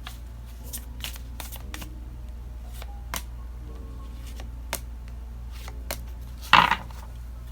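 Tarot cards being shuffled and drawn: scattered light clicks and taps of the cards, with one louder brief shuffle near the end, over soft background music.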